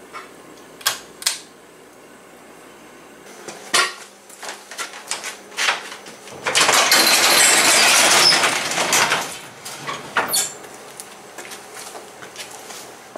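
A sectional garage door rattling and rumbling for about three seconds as it opens, after a few sharp clicks and knocks.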